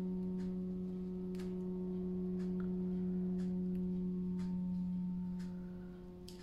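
A steady low hum with several overtones, dropping a little near the end, with faint soft ticks about once a second.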